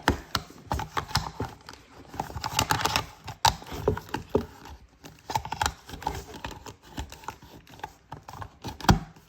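Irregular clicks, taps and knocks of headphones being handled and fitted back together after reassembly.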